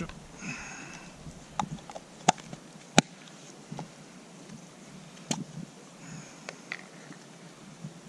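Small plastic condiment containers and a plastic utensil handled on a rock: a scatter of sharp clicks and taps, the loudest about three seconds in.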